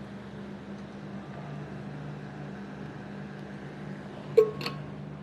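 Steady low hum with no speech, broken by a sharp click about four seconds in and a fainter one just after.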